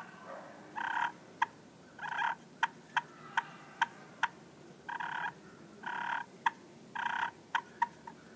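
Beard Hunter Purr & Cluck slate pot call played wet, its waterproof striker wet with water, making soft turkey hen talk. It gives short yelp notes about once a second, with sharp single clucks between them.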